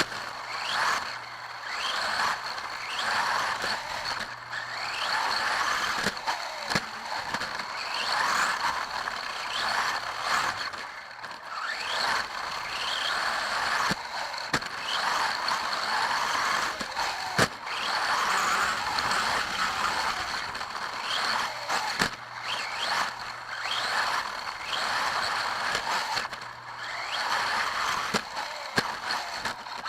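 Onboard sound of a 1/10-scale Xray XB4 electric 4WD RC buggy lapping a dirt track: the motor whines up and down with the throttle over tyre and wind noise, swelling and fading every second or two. A steady high tone runs underneath, and sharp knocks mark landings and bumps.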